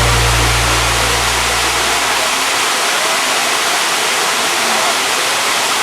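Steady rushing noise, with a low hum underneath that fades out about two seconds in.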